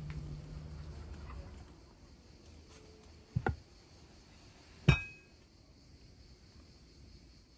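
A heavy black pan set down on a table: a double knock about three and a half seconds in, then a sharp metallic clink with a brief ring about a second and a half later. A low steady hum fades out in the first two seconds.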